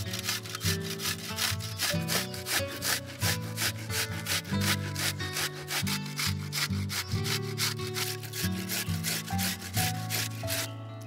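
Half an onion being grated on a stainless steel box grater: quick, even rasping strokes that stop near the end, over soft background music.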